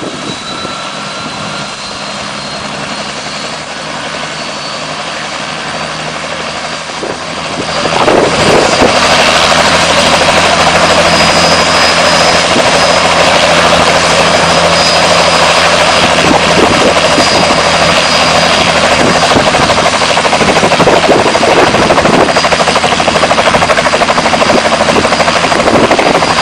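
Full-size helicopter sound effect: a turbine whine slowly climbing in pitch over steady rotor drone, turning much louder and fuller about eight seconds in as the engine and rotor run at full power.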